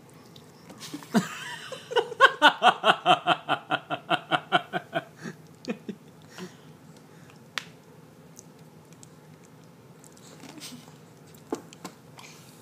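A person laughing in a quick run of ha-ha-ha bursts, about five a second, for roughly three seconds starting about two seconds in. A few short clicks follow later.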